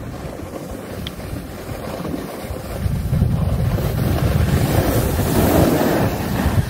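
Wind buffeting a phone's microphone while snowboarding, a steady low rumble that grows louder about three seconds in.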